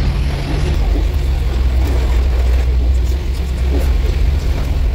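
Car engine and tyre noise heard inside the cabin while driving: a loud, steady low rumble.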